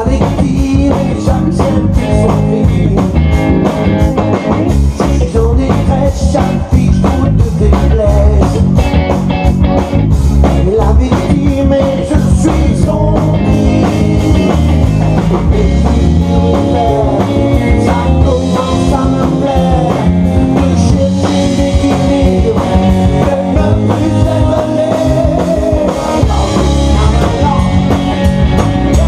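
Live rock band playing loudly: electric guitar, bass guitar and drum kit with a steady beat.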